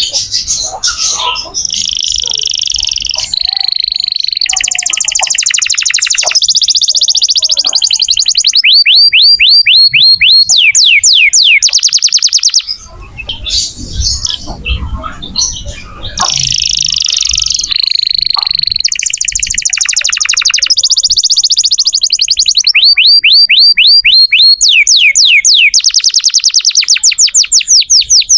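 Domestic canary in full song, singing long phrases of fast trills and runs of rapid rising whistled notes, with a short break about halfway through.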